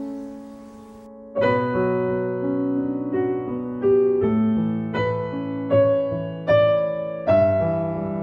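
Background piano music: a quiet lull of fading notes, then a new phrase opening with a chord about a second and a half in, followed by gentle notes and chords struck roughly every three-quarters of a second.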